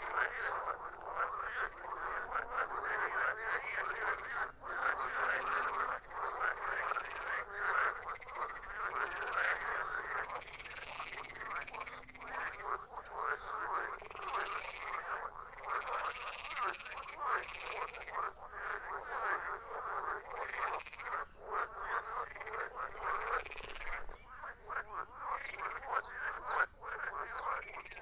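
A chorus of many frogs croaking: dense, overlapping pulsed calls that go on without a break.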